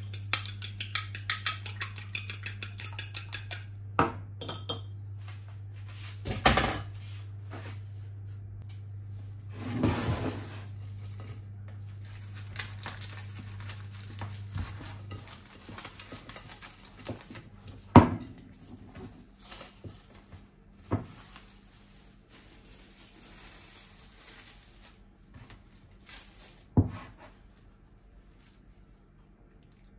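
Kitchen utensils clinking and knocking against dishes: a quick run of ringing metal clinks in the first few seconds, then scattered knocks and light clatter. A low steady hum stops about halfway.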